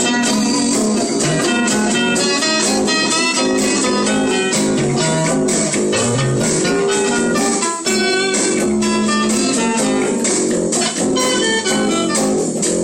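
Guitars jamming in a blues style, with a steady low line under dense, quick picked notes.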